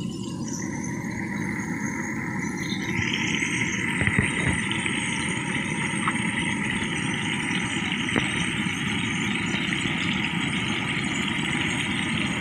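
Meat frying in oil in a steel wok, a steady sizzle that grows louder about three seconds in, over a steady low rumble.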